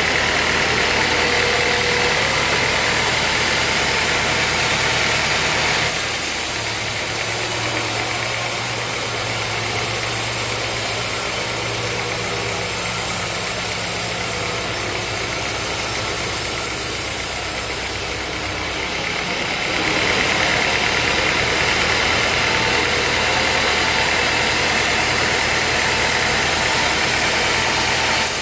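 Sawmill machinery running steadily, a band sawmill with its motor and blade, with a constant hum under a hissing noise. About six seconds in the sound drops a little and a lower hum comes through, and near the twenty-second mark it returns to the brighter, louder running.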